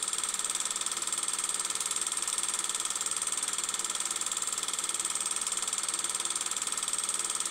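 Film projector running steadily, a fast, even mechanical clatter with a high hiss, laid over silent film footage.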